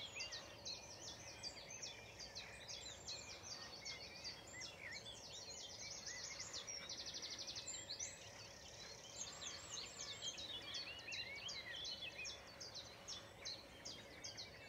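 Faint dawn chorus: many songbirds singing and chirping at once, with a rapid even trill about seven seconds in.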